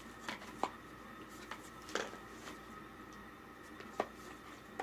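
A few scattered light clicks and taps from small boxes and packaging being handled, over faint room hum.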